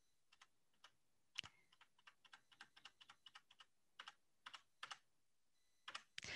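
Faint, irregular clicking of computer keyboard keys, some twenty clicks spread unevenly across the stretch, with a brief soft hiss near the end.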